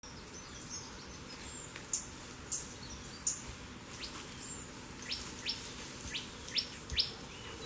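Birds chirping: a string of short, high chirps, several of them quick falling notes, coming about every half second to a second over a faint steady hiss.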